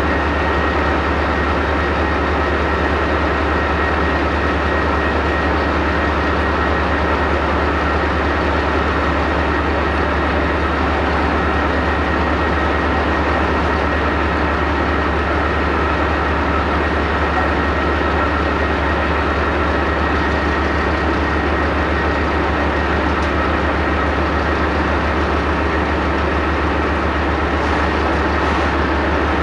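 Heavy armoured-vehicle diesel engine idling steadily, with a deep, even rumble that does not rise or fall.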